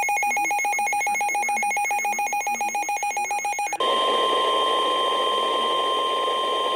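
Emergency alert tones between two weather warnings: a rapidly pulsing, ringing alert tone. About four seconds in, it cuts over to a steady single-pitch alarm tone over radio static, the National Weather Service weather-radio warning alarm tone that introduces the next warning.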